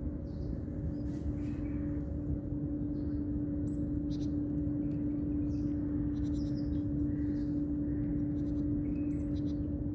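A steady low hum with one constant tone over a rumbling background, and faint short high chirps now and then.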